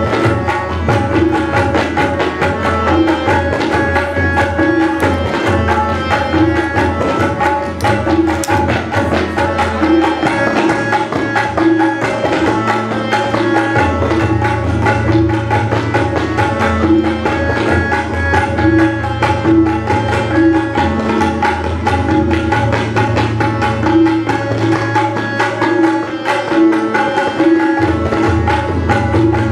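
Tabla ensemble of several players striking in unison, a dense run of quick drum strokes with deep bass-drum tones that come and go in stretches, over a harmonium playing a repeating melody that keeps the cycle.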